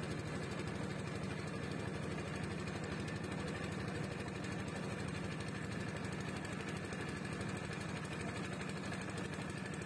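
Motorboat engine running steadily at cruising speed, a constant low, fast-pulsing drone.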